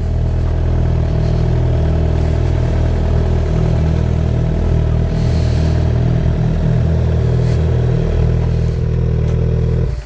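Suzuki sport bike's engine running at low, steady revs as the bike rolls slowly along. The sound drops away suddenly near the end.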